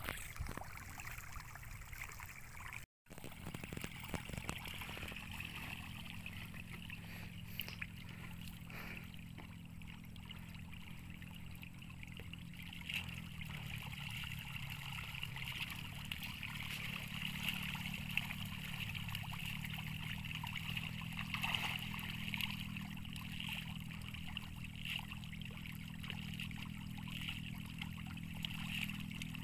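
A school of patin (pangasius catfish) splashing and churning at the pond surface as they take hand-thrown feed: a steady watery splashing and patter. A low steady hum runs underneath.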